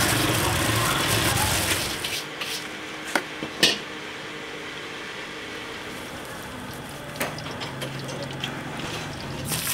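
Cooking sounds at a street-food stall: about two seconds of loud, noisy clatter, then a quieter stretch with a few sharp clinks of utensils over a faint, low, steady hum.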